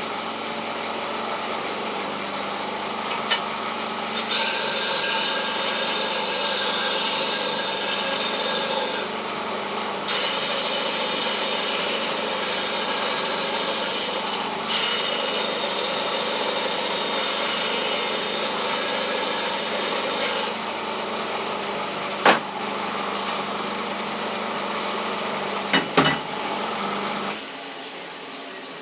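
Knife maker's belt grinder running with a steady motor hum. Three long spells of abrasive belt grinding against a workpiece come in the middle. A few sharp clicks follow, then the motor switches off and runs down near the end.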